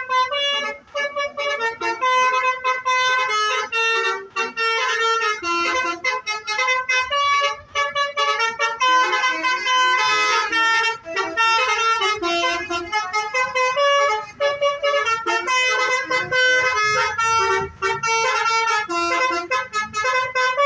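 Basuri (telolet) musical bus horn playing a tune: a continuous run of loud pitched horn notes, each held about half a second to a second, changing pitch from note to note.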